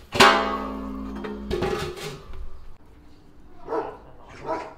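A short musical sting opens: a sudden chord of ringing tones that fades over about a second and a half, with a second hit about halfway through. Then a dog barks twice near the end.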